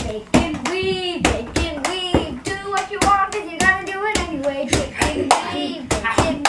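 A voice singing a wordless tune over a quick, even beat of hands clapping or slapping, about three strokes a second.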